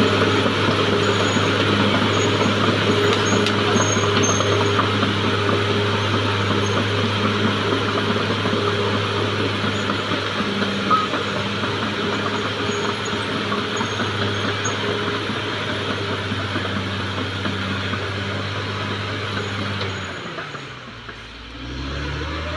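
Caterpillar D6R XL bulldozer's diesel engine running steadily under load, then dropping away briefly near the end and rising again in pitch as it revs back up.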